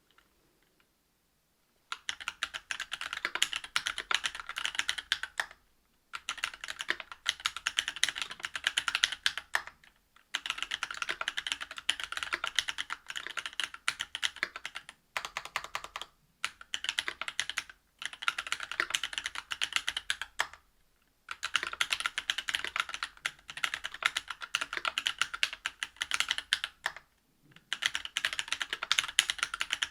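Fast typing on a Whale 75 mechanical keyboard with stock Cannonkeys Lilac linear switches (62g), a brass plate and GMK keycaps: dense runs of key clacks. The typing starts about two seconds in and comes in bursts of a few seconds, with short pauses between them.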